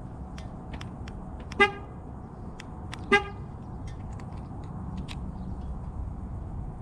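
A car horn chirps briefly twice, about a second and a half apart: the 2019 Ford Mustang GT signalling that it has been locked from its key fob. A few light clicks and a steady low outdoor rumble lie underneath.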